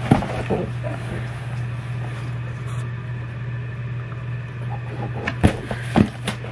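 A steady low hum underneath a few short knocks and clicks: one right at the start and two near the end, as a sneaker box is handled and opened.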